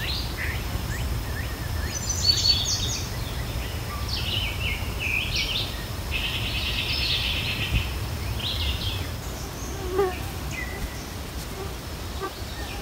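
Wild songbirds singing in woodland: several separate phrases of chirps and one fast trill, over a steady low rumble.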